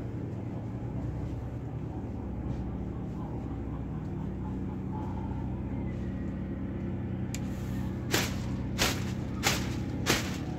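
Low steady hum. About seven seconds in a hiss comes up, and from about eight seconds in sharp bangs repeat evenly, roughly three every two seconds.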